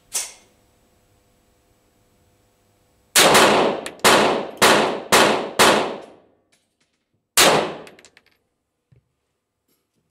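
Pistol shots with a short ringing tail: one softer shot right at the start, then a quick string of five about half a second apart from about three seconds in, and one more a couple of seconds later.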